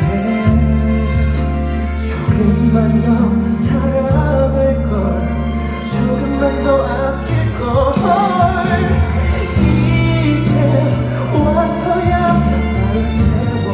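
Live pop ballad played by a band, with sustained bass and chords and a singer's voice over them. Heard as recorded from within the concert crowd.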